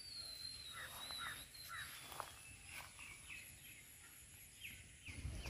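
Birds calling faintly: a thin, high whistle that slowly falls in pitch over the first two seconds, then a run of short, quick chirps that repeat every half second or so.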